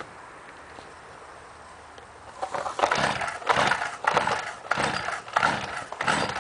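Pull-start cord of a 2008 Stihl FS 55R two-stroke string trimmer yanked again and again, starting about two and a half seconds in, about one and a half pulls a second. The cold engine cranks with each pull but does not catch.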